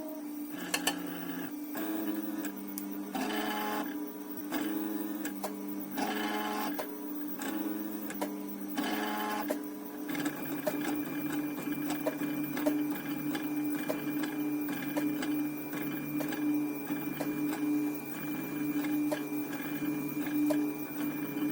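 Stepper motors of a homemade 3D printer built from old CD-drive mechanisms, running in pitched whines. For the first half the pitch switches every second or so as the axes move, then it settles into a steady whine with light ticking.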